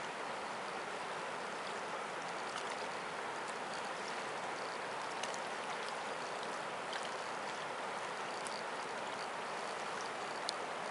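Steady rush of a wide, fast-flowing river, with a few faint clicks scattered through it.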